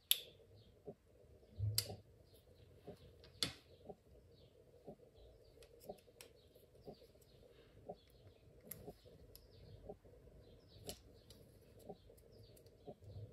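Plastic casing of a Knog PWR bike light being pried open with a small screwdriver: sharp plastic clicks near the start and about two and three and a half seconds in, then lighter clicks and rattles of handling as the housing gives way around the battery. A faint tick repeats about once a second underneath.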